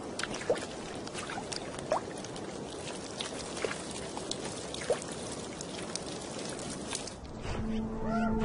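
Water trickling and lapping at the edge of thawing ice, with scattered small clicks and splashes. A sustained, steady music tone comes in near the end.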